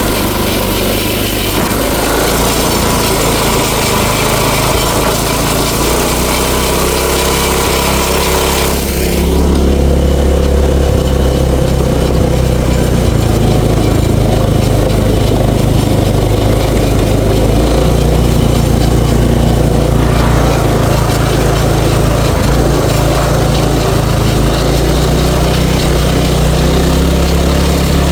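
Small engine of an old chain-drive golf cart running steadily under way on a test drive after a new rear sprocket was welded on. About nine seconds in the sound changes: the hiss drops away and the low engine note grows a little louder.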